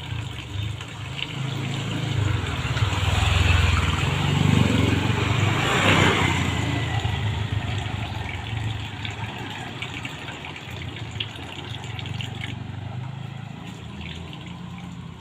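Tap water running while hands are washed under it, with a steady low hum beneath; the flow swells louder from about three to six seconds in.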